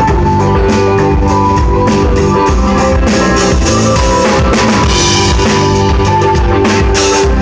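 Rock band playing loud at a sound check: a drum kit keeping a steady beat under guitar, with a heavy low end.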